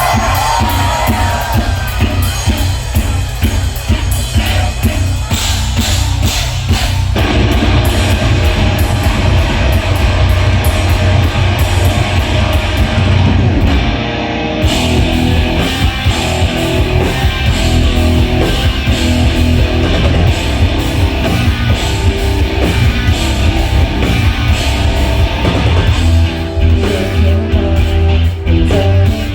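Live rock band playing through a loud PA, with distorted electric guitars, drum kit, bass and a singing voice; the full band comes in heavier about seven seconds in.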